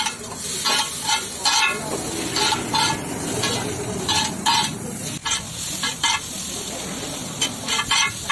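Two metal spatulas clanking and scraping on a large flat metal griddle as chowmein noodles are tossed and stir-fried, over a steady sizzle. The clanks come irregularly, one or two a second, with a short pause about six seconds in.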